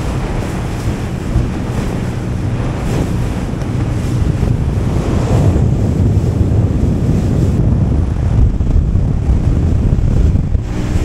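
Wind buffeting the microphone and water rushing past the hull of a fishing boat running at speed, with the steady drone of its engine underneath.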